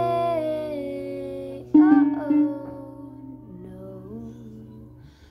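Acoustic guitar strummed and ringing out as it slowly fades, struck again about two seconds in, with a woman's voice holding a wordless note over it. The sound dies away near the end.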